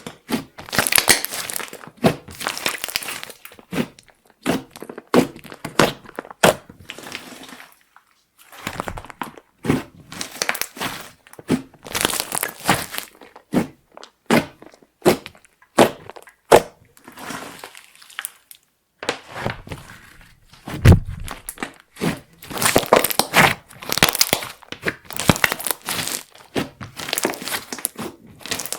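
Clear slime with makeup and glitter being kneaded, stretched and pressed by hand, giving irregular sticky crackles, clicks and pops in quick clusters, with a couple of short pauses and a dull thump about two-thirds through.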